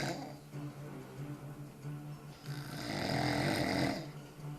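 A drunk man snoring heavily in his sleep: one long snore beginning about two and a half seconds in and lasting about a second and a half, with the tail of the previous snore at the very start.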